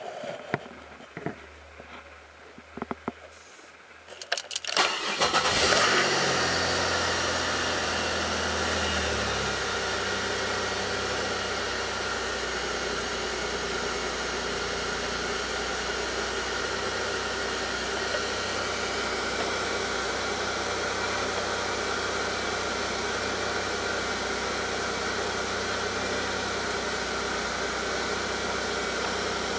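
2002 Pontiac Grand Prix's 3800 V6 engine, after a few clicks, cranks briefly and starts about four seconds in. It flares up, then drops from a fast idle over a few seconds and settles into a steady idle. The engine has a rough, bogging idle that sets no check-engine light.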